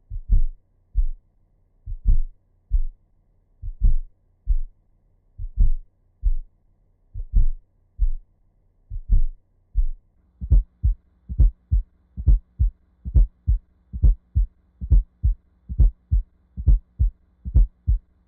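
Heart sounds with a fourth heart sound (S4, atrial gallop): short low thumps in repeating groups, S4 falling just before S1 and S2. They play slowly at first, then about ten seconds in switch to real-time speed and repeat much faster. An S4 is the sign of stiff, non-compliant ventricles that do not relax normally (diastolic dysfunction).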